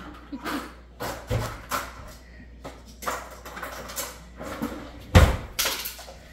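Hands patting and pressing crescent-roll dough on a pizza pan: a run of soft slaps and taps with light kitchen clatter. About five seconds in comes a loud thud, the sound of something being dropped.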